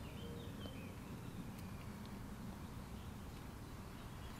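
Quiet outdoor ambience: a faint steady low background noise, with a few faint short high chirps in the first second.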